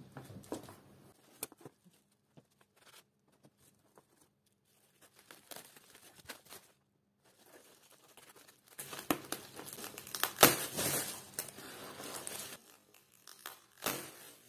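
Bubble wrap crinkling and rustling as it is pulled open and handled, with scattered small crackles and clicks. The loudest stretch of crinkling comes about nine to twelve seconds in, with a few sharp cracks, and there is another short burst near the end.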